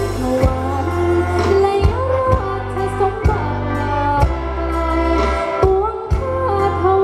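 Live-style Thai luk thung music played over a PA system: a sung melody that slides between notes, over sustained bass and regular drum beats.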